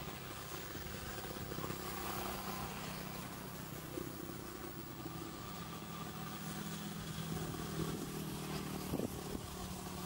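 An engine running steadily off-camera: a low hum with even overtones that grows a little louder in the second half, with a few sharp clicks near the end.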